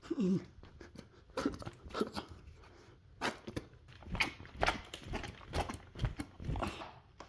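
A run of irregular crunchy scraping and dabbing strokes of a paint tool worked hard against the painting surface, about two a second. There is a brief falling vocal hum near the start.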